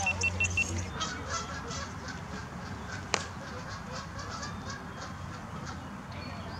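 Bird calls: a quick run of short, evenly repeated calls at the start, then scattered calls, with one sharp click about three seconds in.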